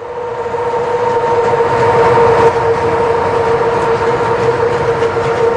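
A train running through the yard: steady rumble and rail noise, under a single high-pitched tone held throughout.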